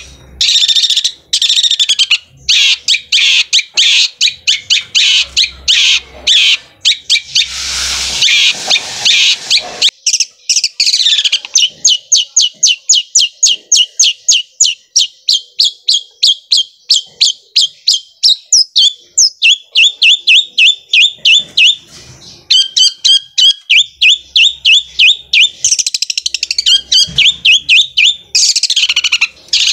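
Long-tailed shrike (cendet) singing in full voice: scratchy, hurried chatter, then about ten seconds in a long, fast run of repeated rising notes, about five a second, like a sewing machine, turning harsh and scratchy again near the end.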